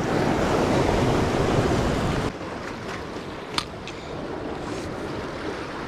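Ocean surf washing against the jetty with wind on the microphone, louder for about the first two seconds and then dropping off suddenly. A single sharp click about three and a half seconds in.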